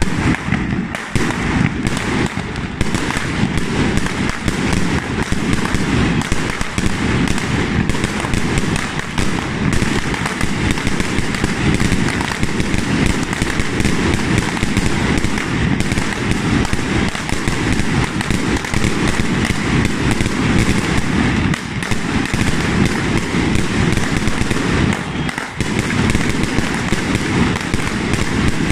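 Rows of multi-shot firework cakes on a street firing continuously: a dense, unbroken stream of cracks and pops from shells launching and bursting.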